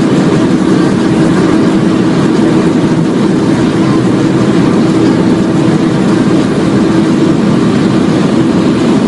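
Modified BMW 135i's turbocharged straight-six held at high revs at about 285 km/h, heard from inside the cabin: a steady engine note under loud wind and road noise, with no change in pitch.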